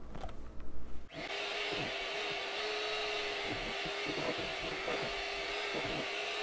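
Electric hand mixer switching on about a second in and running steadily, its beaters whipping a thick, fluffy whipped soap base in a plastic bowl to work the preservative in.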